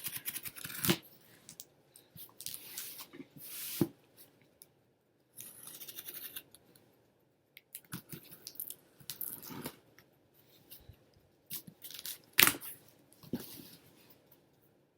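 A mailed package being handled and its packaging torn at while opening it: irregular rustling and tearing, with a few sharp knocks, the loudest about twelve seconds in.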